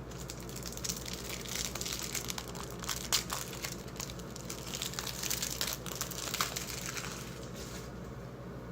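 Crinkling and crackling of a trading card pack's plastic wrapper as it is torn open by hand, the rustle thinning out near the end.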